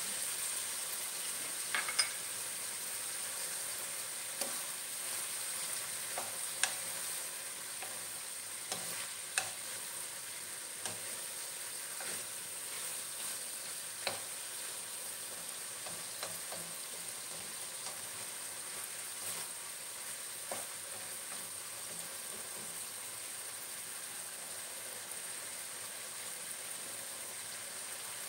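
Pork cubes sizzling in a wok, a steady frying hiss, with scattered sharp clicks every few seconds as the meat is stirred in the pan.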